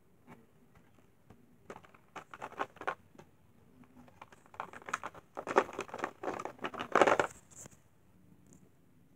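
Small toy train engines clicking and clattering against each other and a plastic storage tray as a hand rummages through them, in two spells, the second longer and louder.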